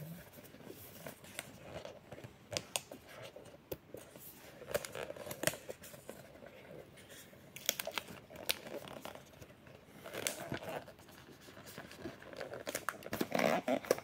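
Hands scraping, rustling and tearing at a small cardboard box's seal to open it, with scattered light clicks and scratches.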